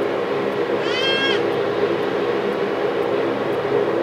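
Twin-engine turboprop airliner taxiing, its engines and propellers giving a steady drone with several low hum tones. About a second in, a brief high call that rises and falls passes over it.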